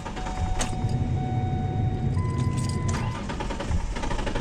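2004 Ford Ranger's 4.0 L V6 being cranked by the starter with a fast, even rhythm, turning over but not catching. It is the no-start fault that the owner puts down to the fuel pump or its relay, with fuel starvation suspected.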